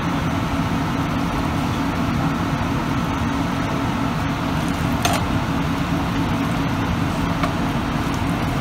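Steady mechanical hum of a running kitchen appliance fan, with one light click about five seconds in.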